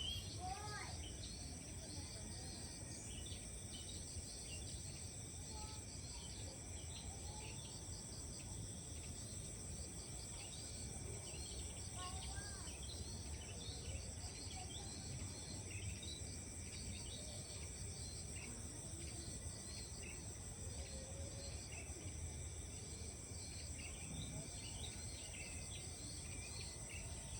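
Steady chorus of insects with a high, even drone, with many short bird chirps scattered through it.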